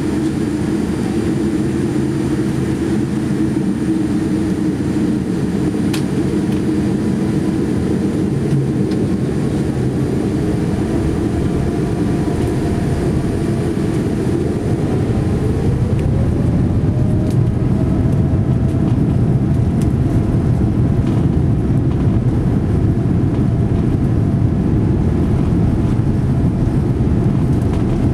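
Steady cabin noise of a Boeing 787-9 airliner with its engines running, a low rumble. About halfway through, a tone rises in pitch and the noise grows slightly louder.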